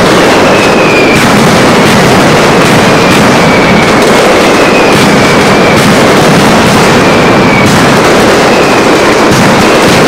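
Mascletà: a dense, continuous, very loud barrage of firecrackers and aerial bangers, so loud the recording stays at full level. Whistles falling in pitch recur every second or two through the barrage.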